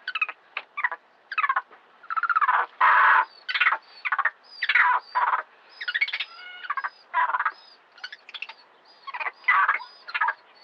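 Monkey sound effect: a rapid series of short screeching and chattering calls, about two a second, some ending in a thin high squeal.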